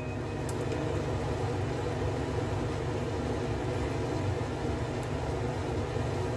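Steady low rumble and hiss of gas stove burners running under the stone pots of rice, with a couple of faint ticks.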